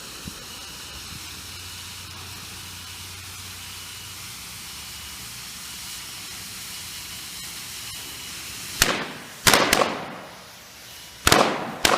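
An alarm clock beeps faintly in an even rhythm over a steady hiss for the first few seconds. From about nine seconds in, five sharp firecracker bangs go off in quick succession, blowing the clock apart.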